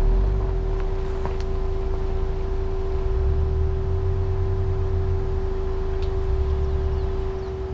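Ford Bronco Sport running at steady revs as it crawls up a rocky dirt trail, with a steady whine over a low, uneven rumble.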